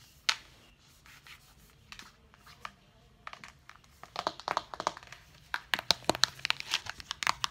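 Close handling noise from hands moving the cardboard eyeshadow palette near the microphone: a sharp knock at the start, a few faint scattered taps, then a dense run of crinkly rustles and clicks in the last few seconds.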